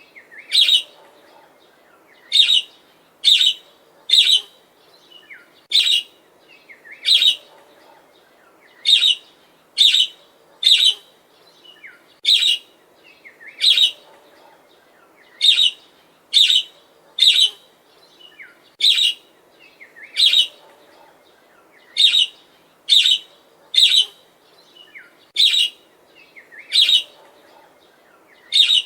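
Budgerigar (budgie parakeet) giving short, sharp, high chirps about once a second in a steady series, with faint softer chatter between them.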